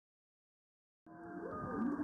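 About a second of dead silence, then humpback whale song picked up underwater by a hydrophone and played through a boat's speakers: slow rising and falling moans over a steady hum, muffled and growing louder.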